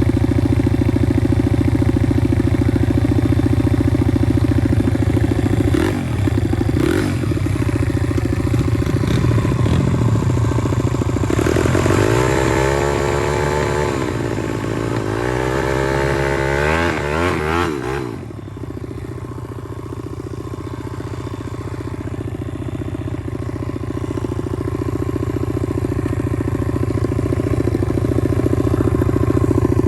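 Pit bike's small single-cylinder engine running under way. In the middle the revs rise and fall several times, then about two-thirds of the way through the engine drops to a lower, quieter note and slowly builds up again.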